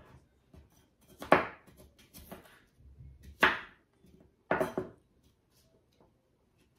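Chef's knife chopping apple on a wooden cutting board: sharp knocks of the blade going through the apple onto the board, roughly one a second, with fainter taps in between.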